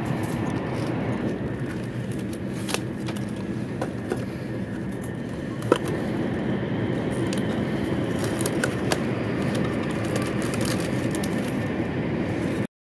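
Steady low rumble inside a Taiwan High Speed Rail train cabin at speed, with light clicks and rustles as a cardboard snack box is opened on the tray table; one sharper click comes a little before the middle.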